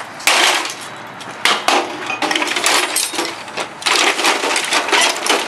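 A cash register being broken apart for scrap: a dense clatter of sharp knocks, cracks and rattling metal and plastic parts, coming in several bursts.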